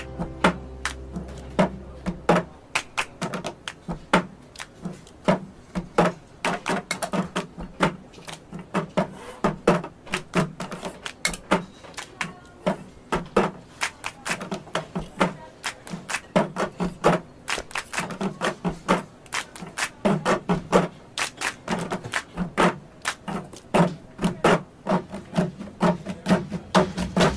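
Hand-clap and tapping percussion from the music track: a quick pattern of sharp claps and knocks, several a second, with no melody or singing.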